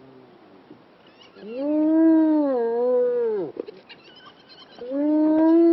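Spotted hyena calling: long, low, pitched calls that swell up, hold with a slight dip, then glide down at the end. One lasts about two seconds, starting a little over a second in, and a second begins near the end.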